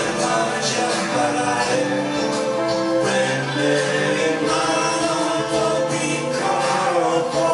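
A man singing an Italian pop ballad, accompanied live on a Roland E-86 arranger keyboard and a piano-style keyboard, with a steady beat and tambourine-like percussion.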